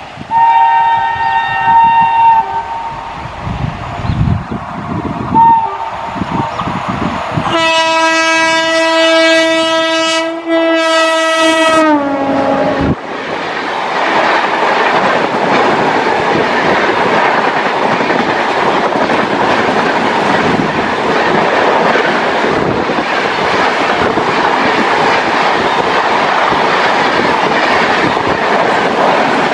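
WAP-7 electric locomotive's horn: a short blast near the start, then a longer blast from about seven seconds in whose pitch drops at the end as the locomotive passes. From then on, passenger coaches run past at speed with a steady rush of wheel-on-rail noise.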